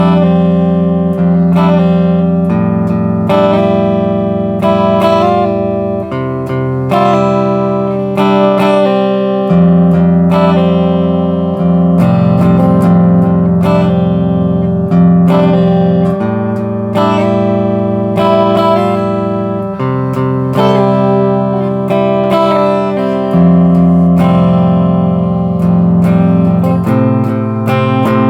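Epiphone SG Standard electric guitar in open FACGCE tuning, played through a Hartke HD15 bass amp: a riff of picked chords and single notes left to ring, the chord changing every few seconds.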